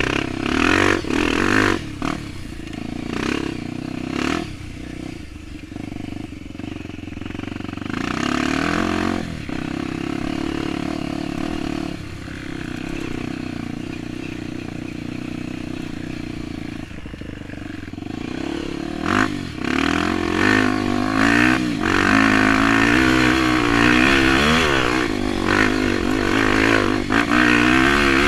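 Dirt bike engine running under load off-road, its pitch rising and falling as the throttle is worked. Short knocks and clatter come in the first few seconds. It revs harder and louder in the last third.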